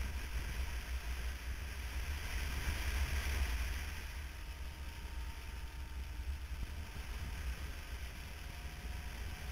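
Wind buffeting the microphone of a camera on a moving motorcycle, a steady low rumble and rush over road noise, easing slightly about four seconds in.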